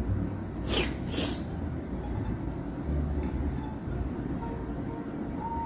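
Two short hissing bursts about half a second apart, a little under a second in, over a steady low rumble.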